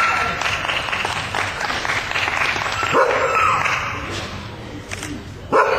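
A beagle barks twice, once about three seconds in and again near the end, over a patter of hand clapping.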